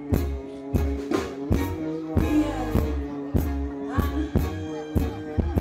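Live band music from a dancehall stage show: a steady drum beat over heavy bass and held keyboard chords, with no vocal on top.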